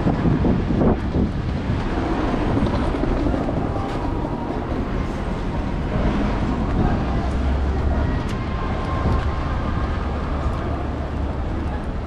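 Busy city street background noise: a steady low rumble of passing traffic, heaviest about seven to nine seconds in.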